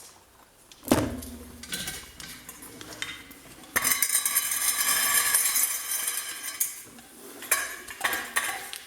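Metal clinks and knocks from handling a reassembled electric water pump, with a sharp knock about a second in and a steady rushing noise for nearly three seconds in the middle.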